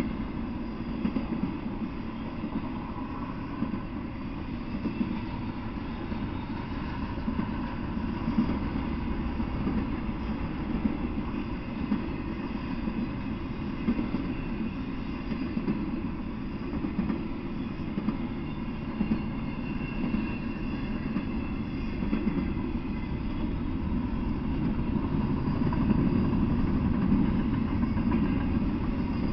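Intermodal freight train cars rolling past on the rails: a steady low rumble with scattered sharper knocks from the wheels, growing a little louder near the end.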